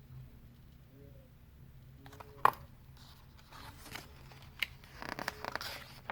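Paper handling in a quiet room: a sharp click about halfway through, then a few light clicks and a brief paper rustle near the end, as a picture book's page is turned.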